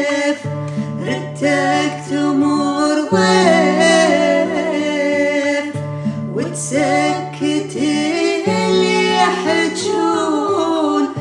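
Music: a sung Arabic song with instrumental accompaniment. Sustained chords change about every two and a half seconds under a wavering vocal line.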